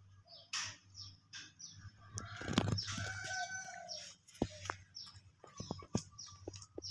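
Domestic chickens clucking and calling, with a louder run of calls in the middle, among scattered short sharp clicks and taps.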